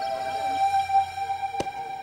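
Ambient background music: held sustained tones with one sharp percussive hit about one and a half seconds in.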